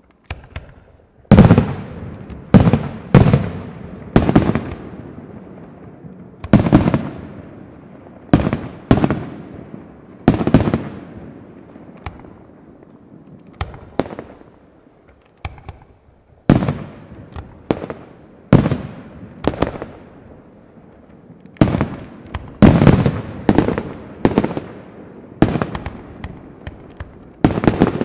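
Aerial firework shells bursting in an irregular volley of about two dozen loud bangs, each trailing off in a long echo, with a short lull about halfway through.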